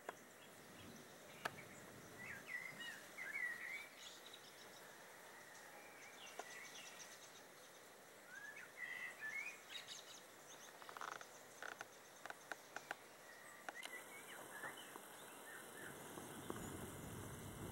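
Faint birdsong over quiet outdoor hiss: a few short warbled phrases, with some soft clicks. A low rumble comes in near the end.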